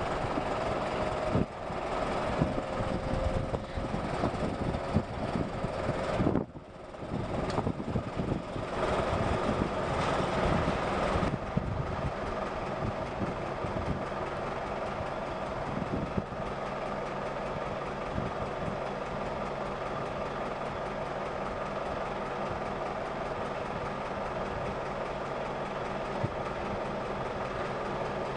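Steady mechanical engine hum. During the first dozen seconds it is uneven, with scattered knocks and a brief dropout about six and a half seconds in.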